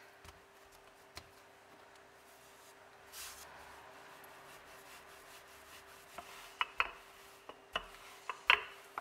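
Wooden rolling pin rolling out shortcrust dough on a floured wooden pastry board: a soft rubbing, with a few short sharp knocks in the last three seconds.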